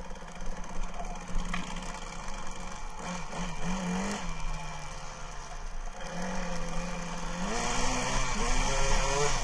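1999 Kawasaki KDX220R's single-cylinder two-stroke engine running, heard muffled through a camera case. It revs up and drops back about three seconds in, then climbs again about seven and a half seconds in.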